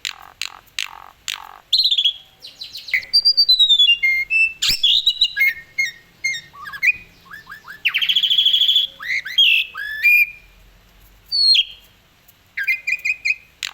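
Asian pied starling (jalak suren) singing in full voice: a fast, varied medley of clear whistles, rapid repeated notes and harsh chattering calls with short pauses between phrases. A sharp click sounds just under five seconds in.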